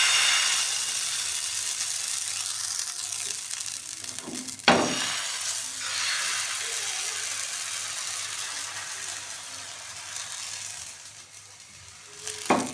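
Crepe batter sizzling as it hits a hot, oiled nonstick frying pan. The hiss is loudest at the pour and slowly fades as the thin batter sets. There is a single knock about five seconds in, and a brief clatter near the end as the pan is lifted off the gas burner.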